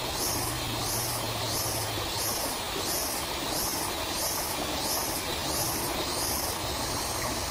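A small stream running over rocks, with a high-pitched insect song pulsing in a regular rhythm, about three pulses every two seconds, that stops near the end.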